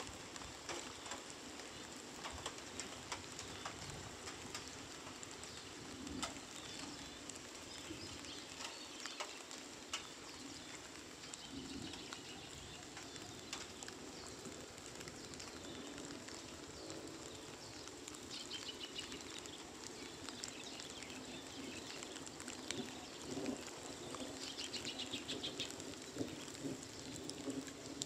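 Light rain pattering and dripping steadily, with birds calling now and then and a quick run of chirps near the end.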